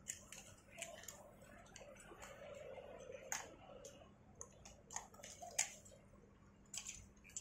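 Faint, irregular light clicks and clinks of rope-access hardware: carabiners and rope devices knocking against a rescuer's harness. A few louder clinks come a little past three seconds and about five and a half seconds in.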